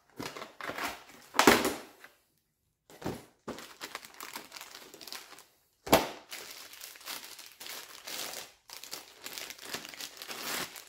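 Clear plastic packaging bag crinkling and rustling as it is opened and handled, in irregular bursts with sharper crackles about a second and a half in and again about six seconds in.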